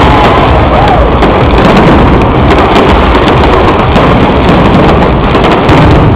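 A dense barrage of fireworks bursting and crackling: a continuous, very loud rumble of booms with many sharp cracks, without a break.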